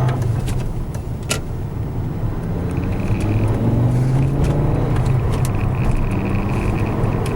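Audi 200 20v's drivetrain running under way, its engine note rising, with a high whine that comes and goes, from a used replacement 016 gearbox the owner takes for failing. A single sharp click sounds about a second in.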